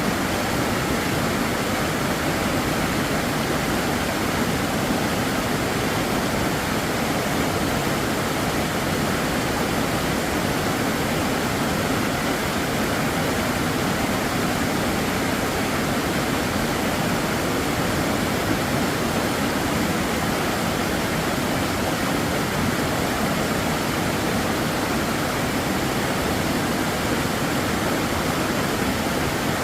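Mountain valley stream rushing steadily, a constant unbroken rush of water.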